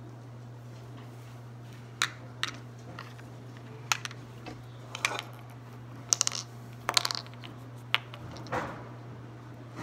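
Irregular light clicks and taps of small plastic toy tools and molds being handled, some in quick clusters, over a steady low hum.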